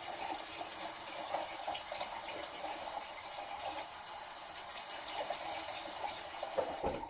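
Kitchen faucet running in a steady stream into the sink, shutting off near the end.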